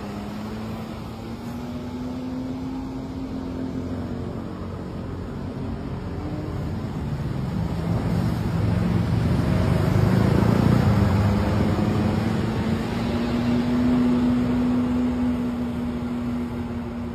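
A bus driving past, its engine and road noise swelling to a peak about ten seconds in and then easing off, over a low steady engine drone.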